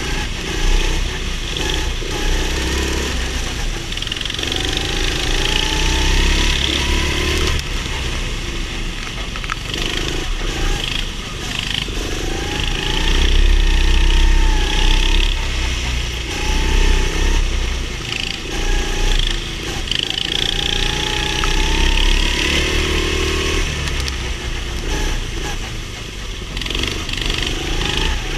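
Go-kart engine heard onboard at racing speed, its revs climbing in several long rises and dropping back again and again through the laps.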